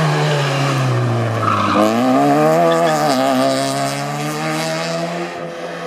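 Citroën C2 rally car's engine coming off the throttle as it slows for a corner, with a brief tyre squeal, then revving up hard as it accelerates away. There is one quick gear change about three seconds in.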